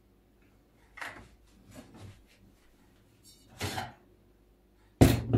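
Kitchen utensils and cookware being handled: a few soft knocks and scrapes, then a sudden loud clatter near the end.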